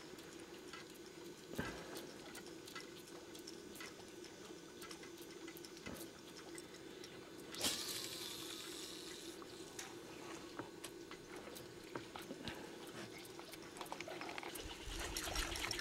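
Faint water sounds around a small boat, with scattered small clicks and a steady low hum, and a brief splash about eight seconds in.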